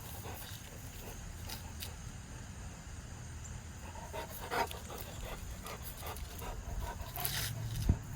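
A Cane Corso dog panting in short, uneven breaths over a low rumble, with one sharp knock near the end.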